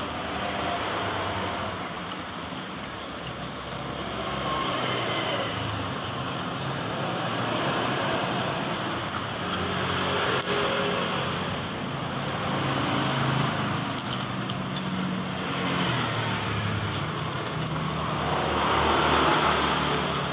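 Road traffic going past, its noise swelling and fading as vehicles come and go, with a few sharp clicks now and then.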